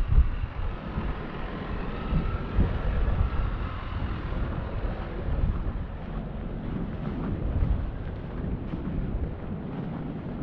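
Snowstorm wind buffeting the microphone: a low, uneven rumble that rises and falls in gusts.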